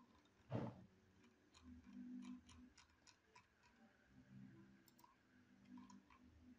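Faint computer mouse clicks, scattered and several close together at times, with one louder knock about half a second in.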